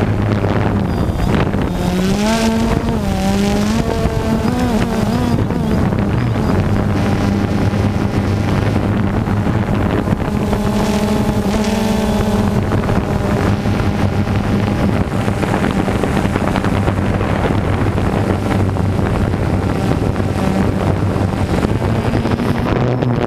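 DJI Phantom 2 quadcopter's motors and propellers buzzing in flight, heard from the camera slung beneath it: a steady hum whose pitch wavers as the motors change speed. Wind rushes over the microphone.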